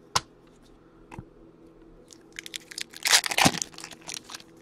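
A foil trading-card pack wrapper being torn open and crinkled in the hands, in scattered crackles that are loudest just past the middle. A single sharp tap comes just after the start.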